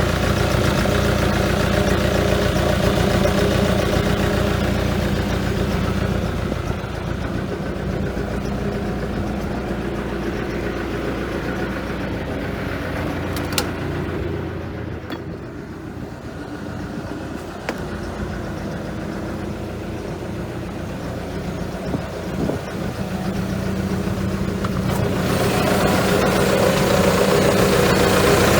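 Hitachi ZX280LC-3 tracked excavator's diesel engine running steadily at idle. It grows quieter through the middle and louder again near the end.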